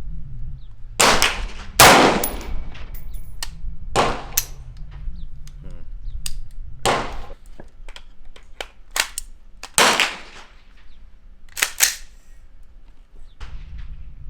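Gunshots at a shooting range: about seven loud shots at irregular intervals, each trailing off in echo, with fainter shots between them. A low wind rumble sits on the microphone throughout.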